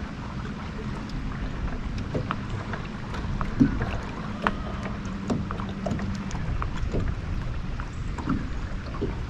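Sounds of a small fishing boat sitting on the water: a steady low rumble with scattered small clicks and knocks, the sharpest knock a little over three seconds in, and a faint steady hum through the middle.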